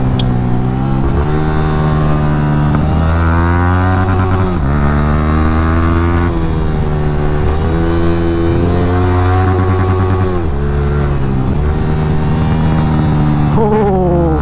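Motorcycle engine accelerating through the gears. Its pitch climbs steadily and drops sharply at each upshift, several times over, with the biggest drops about 5 and 10 seconds in.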